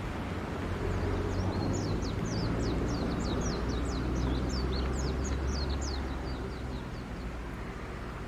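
Ship engines droning steadily and low during a harbour departure. A bird sings a quick run of short, high chirps over it from about a second in until near the end.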